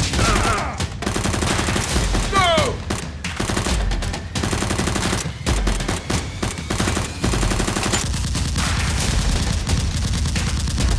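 Rapid, sustained gunfire sounds in fast bursts, like machine-gun fire, dubbed over a Nerf blaster battle.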